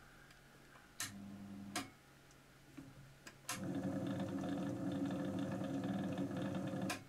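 Small electric motor driving a watchmaker's lathe by belt, starting and stopping on its own: a click, a short run of under a second, a click as it cuts out, then it starts again and runs with a steady hum for about three and a half seconds before stopping with a click. The motor is faulty, starting only some of the time and then stopping.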